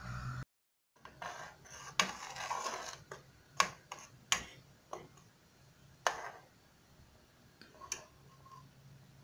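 A metal ladle stirring thick bulgur soup in a stainless-steel pot, clinking sharply against the pot about six times, with a soft swishing of the soup early on. A low steady hum at the start breaks off in a half-second dropout before the stirring.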